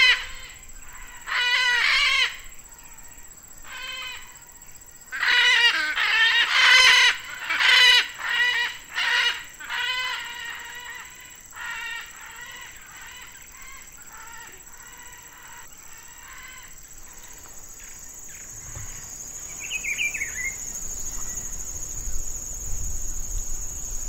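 Blue-throated macaw calling: a series of loud calls, each about a second long, that grow fainter and stop after about a dozen seconds. Near the end a steady high insect trill rises, with one short falling bird note.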